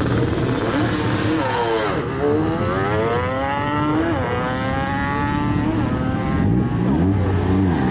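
Car engines revved while the cars are held at the start line before a launch, pitch climbing and dropping again and again: long rising sweeps in the first half, a held pitch in the middle, and several quick rise-and-fall blips near the end.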